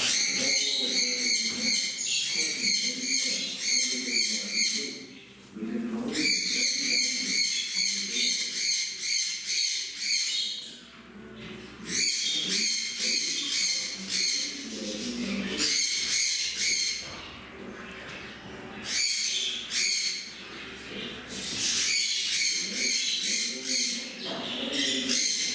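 Small caged parrots chattering and squawking, high-pitched and rapid, in stretches of a few seconds broken by short pauses.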